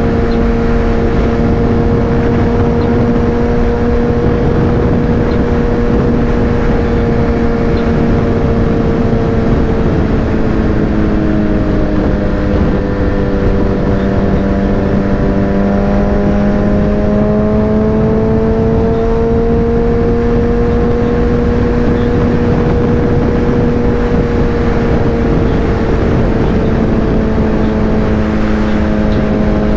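Suzuki Hayabusa's inline-four engine running steadily at highway cruising speed over heavy wind and road noise. The engine note sags a little about ten seconds in and climbs back up over the following dozen seconds.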